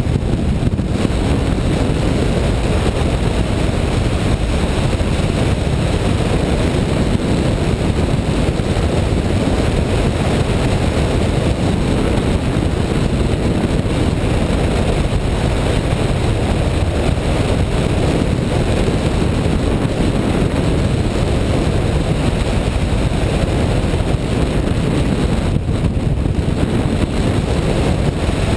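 Steady, loud rush of wind over a hang glider's wing-mounted camera microphone, driven by the airflow of the glider in flight.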